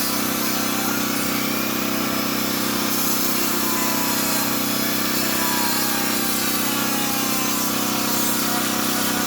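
Dremel rotary tool with a chainsaw-sharpening attachment grinding the saw chain's teeth, running steadily with faint shifts in pitch as it bears on the chain, over a portable generator engine running steadily.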